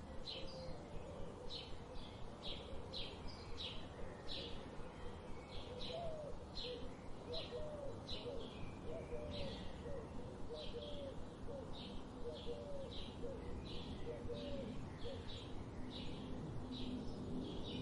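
Forest birdsong: one bird repeats short high chirps about twice a second throughout, while another sings low, wavering whistled notes through the middle stretch, over a steady low background rumble.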